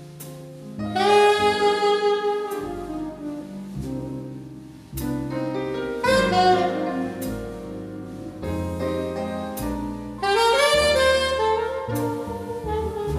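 Live jazz quartet: an alto saxophone plays three phrases of long held notes, entering about a second in, around five seconds and around ten seconds. Piano, upright bass and drums accompany it.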